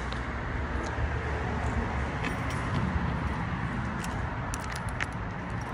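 Car running steadily, a low even hum and rumble, with a few faint clicks about four and five seconds in.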